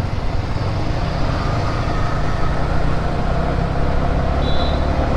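Motorcycle engine running steadily while riding, with wind and traffic noise around it.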